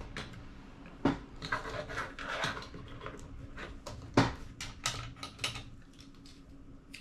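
Handling noise on a Sony DCR-TRV310 camcorder: a microfiber cloth rubbing over the lens and the plastic body clicking and knocking, with louder knocks about a second in and about four seconds in, over a faint steady hum.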